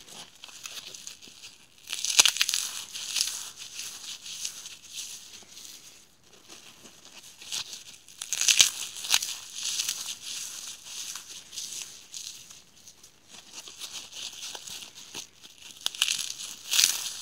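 Dry floral foam crunching and crumbling as rubber-gloved fingers squeeze and break up foam stars: a fine, dense crackle that swells three times, about two, eight and sixteen seconds in.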